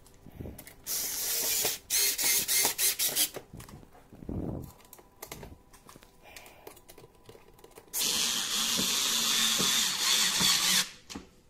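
Cordless screwdriver driving screws into the dishwasher's panel: two short runs in the first few seconds, then one steady run of about three seconds near the end that stops abruptly.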